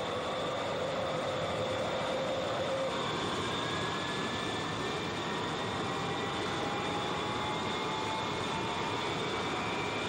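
Jet airliner engines running: a steady rush with whining tones. About three seconds in, a lower whine drops away and higher whines begin to climb slowly.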